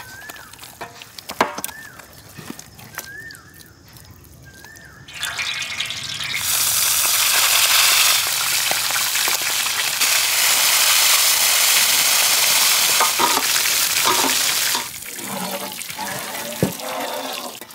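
Whole goat legs deep-frying in a large wok of hot oil: a loud, even sizzle that starts about five seconds in and runs for about ten seconds, then drops to a quieter sizzle with a few clicks. Before the frying, softer squishing and clicking as masala is worked into the meat by hand.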